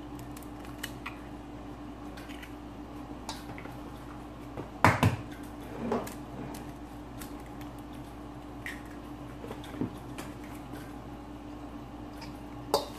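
An egg cracked against the rim of a stainless steel mixing bowl: a sharp knock about five seconds in, then a softer one about a second later. A metal spoon clicks against the bowl near the end, over a steady low hum.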